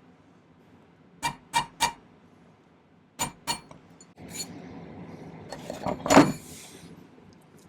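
Hammer tapping on metal while the sterling silver spiral ring is shaped: three quick ringing taps, then two more. After that comes a stretch of scraping and handling noise with one louder knock near the end.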